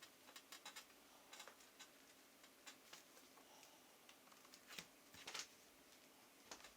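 Faint, irregular light clicks and ticks, a few clustered together about a second and a half in and again around five seconds in, over a faint steady low hum.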